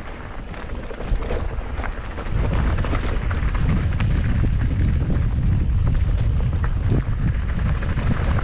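Mountain bike descending a dirt trail: wind buffeting the microphone and tyres rolling over the ground, with frequent rattling clicks from the bike. The wind rumble grows louder a little over two seconds in as the bike picks up speed.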